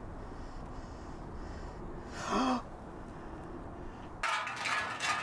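A man's short startled gasp about two seconds in, then crickets chirping from about four seconds in.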